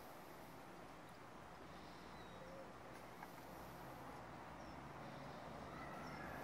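Faint, distant bird calls, a few short chirps, over a quiet outdoor background hiss.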